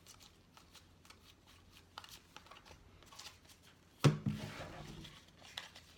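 Baseball trading cards being handled and flipped through: soft flicks and rustles of card stock, with one louder knock about four seconds in.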